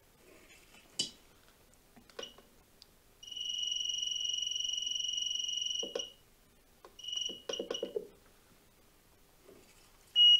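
Soldering station beeping as its set temperature is turned down from 450 to 380 degrees: a steady high beep of nearly three seconds, a shorter one about a second later, and a brief louder beep near the end, with soft button clicks in between.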